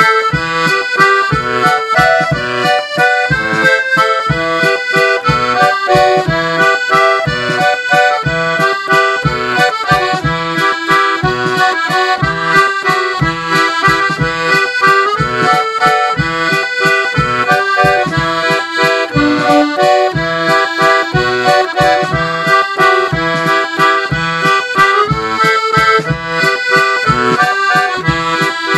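Accordion music in waltz time, a melody over a steady, regular bass beat.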